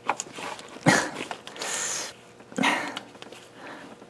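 A person's short, breathy grunts and exhales of effort while working a tight oil pump drive off an engine's crankshaft by hand. There are two short grunts, about a second in and near the middle, with a breathy hiss between them.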